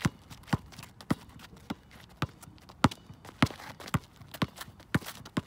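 Basketball dribbled on an outdoor asphalt court: steady, sharp bounces about twice a second, with a few fainter taps between.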